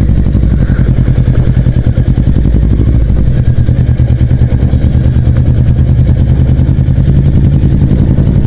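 Kawasaki Ninja sport bike's engine running at a steady, unchanging pitch, heard from the rider's seat, without revving up or down.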